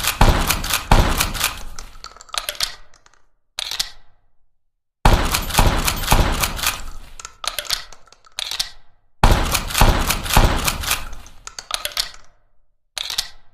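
Winchester Model 1887 lever-action shotgun sound effect: sharp shot-and-action sounds in a dense cluster of cracks and clicks, followed by a shorter separate burst. The same sequence repeats three times, about four seconds apart.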